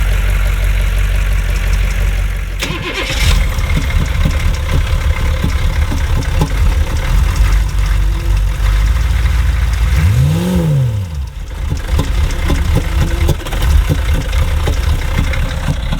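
Van engine idling unevenly just after being coaxed to start, with a short rev that rises and falls about ten seconds in. The idle is rough enough that a little gas smooths it out.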